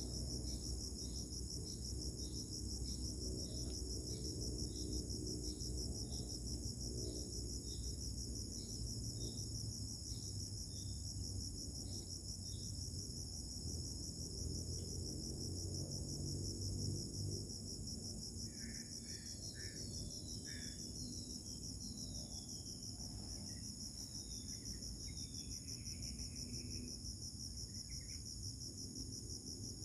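Steady high-pitched insect chorus trilling without a break. A separate short chirp repeats about twice a second for the first dozen seconds, and a few scattered chirps come later. A low rumble runs underneath.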